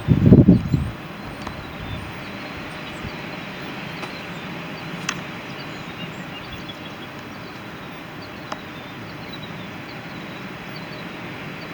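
A brief low rumble in the first second, then steady, even outdoor background noise with two faint clicks, about halfway through and near the end.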